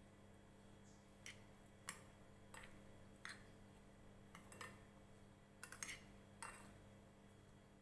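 Faint, irregular taps and clicks of a metal spoon against a glass bowl while stirring a dry, crumbly grated paneer and vegetable mixture, about nine light taps spread over several seconds.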